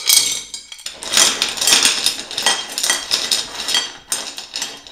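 Small white pebbles clattering as they are tipped from a glass jar into a shallow black dish, a dense run of clicks and knocks that thins out near the end.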